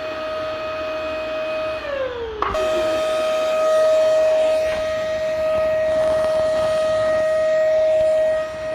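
Vacuum cleaner motor running with a steady high whine over airflow noise. About two seconds in, its pitch drops as if winding down, then it is abruptly back at full speed.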